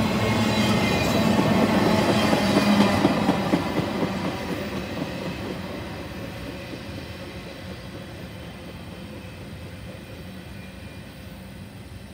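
Intermodal freight cars rolling past on the rails. The sound fades steadily after about three seconds as the end of the train draws away.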